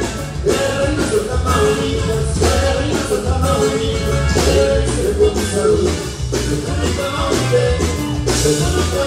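Live norteño band playing: button accordion and guitar over a steady bass line and drum beat, heard from among the audience.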